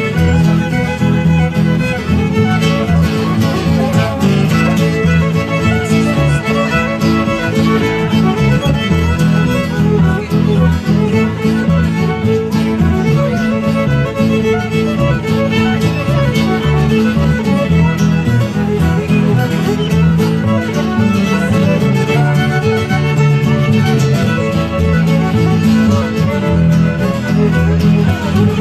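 Live acoustic barn dance band playing a fiddle-led dance tune, with fiddles carrying the melody over strummed guitar and a steady rhythm.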